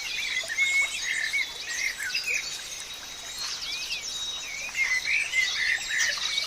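Several birds chirping and singing at once, a busy mix of short whistled notes and trills, over a thin steady high insect tone.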